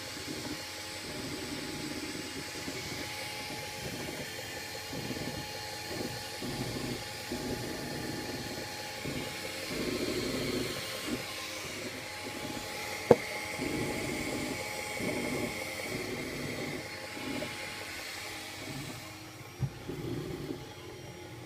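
Ultimaker 2 3D printer running, with fans and the print head's stepper motors whirring in irregular swells, and a sharp tick about thirteen seconds in and a softer one near the end: the unexplained ticking noise that the owner is chasing.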